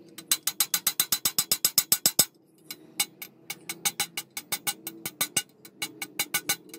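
Ratchet wrench clicking in a fast, even run of about eight clicks a second while a bolt is tightened. It stops a little over two seconds in, then resumes in shorter, uneven runs.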